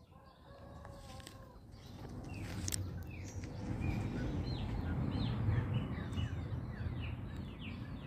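A rooster crows once, a single long call of about a second and a half. Then small birds chirp over and over in quick falling notes, over a low rumble that grows louder through the middle.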